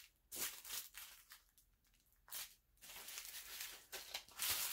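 Small plastic bags of diamond-painting drills crinkling in short bursts as they are shuffled around by hand, with a brief quiet pause just before the middle.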